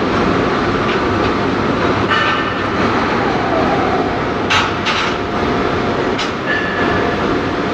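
Industrial machine running: a loud, steady mechanical noise with a faint constant tone. A few sharp clicks come about four and a half, five and six seconds in, followed by a brief higher tone.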